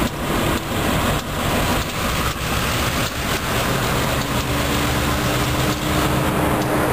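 EMD diesel switcher and road-switcher locomotives (an MP15AC and a GP38-2) running past close by, their engines humming, with irregular knocks from wheels on the rails. About four seconds in, a steady engine tone rises out of the rumble.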